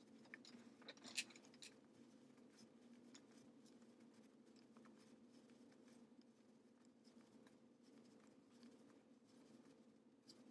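Near silence: faint steady room hum, with a few soft clicks in the first two seconds, the sharpest just over a second in.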